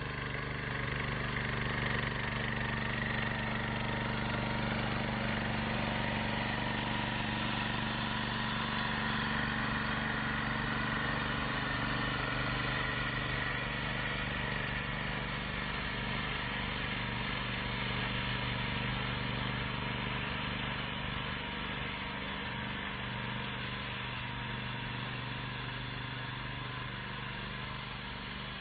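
Engine of a 7-horsepower WY-7000 walk-behind cultivator running steadily while it cuts furrows.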